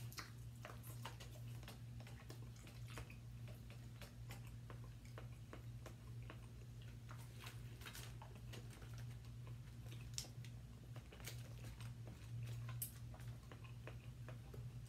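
Faint eating sounds: chewing and lip smacks, with scattered small clicks and crinkles as fingers pull meat off smoked turkey legs over aluminium foil. A steady low hum runs underneath.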